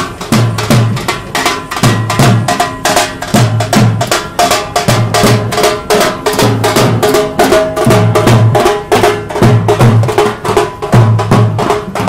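Procession drums, including a barrel drum slung at a marcher's waist, beating a fast, steady rhythm with a deep beat about once a second. A pitched tune runs above the drumming.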